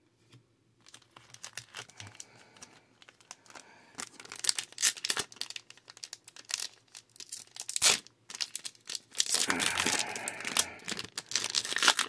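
Foil wrapper of a trading-card booster pack crinkling as it is torn open and handled. It starts as faint crackles, grows louder about four seconds in, and is busiest near the end.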